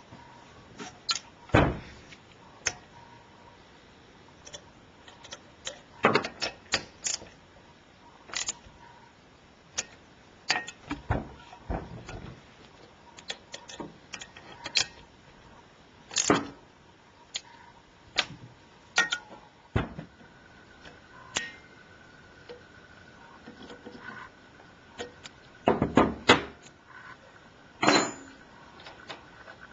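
Irregular clicks, clinks and knocks of small parts and hand tools being handled at a workbench, scattered singly and in short clusters. A faint steady high tone comes in about two-thirds of the way through.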